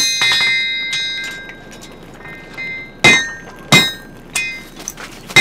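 Blacksmith's hammer striking a horseshoe on an anvil, each blow clanging and ringing on. A few blows at the start, a pause of about two seconds, then two heavy blows about three seconds in, a lighter tap, and another heavy blow at the very end.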